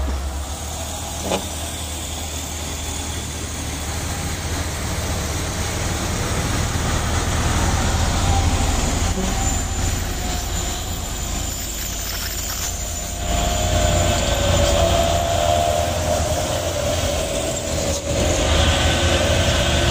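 Heavy diesel trucks' engines running as they pass close on a hill road, a steady low drone that grows louder about two-thirds through as a loaded truck goes by, with a short click about a second in.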